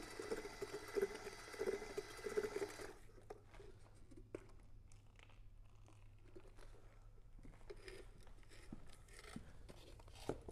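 Cordless drill with a mixing paddle running in a gallon can, stirring the urethane coating with a steady whine and churning, then stopping abruptly about three seconds in. After that come faint clicks and scrapes of the paddle against the metal can.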